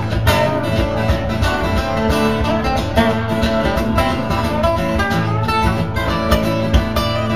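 Acoustic guitar strummed in a steady rhythm, playing an instrumental passage of a country-style song.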